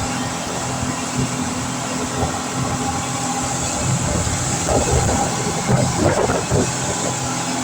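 A speedboat's twin outboard engines, up to 500 hp, running at speed: a loud, steady drone with rushing water and wind noise. The noise turns rougher and a little louder for a couple of seconds in the middle.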